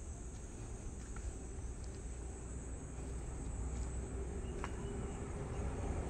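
Steady high-pitched insect drone, like crickets, with a low rumble underneath.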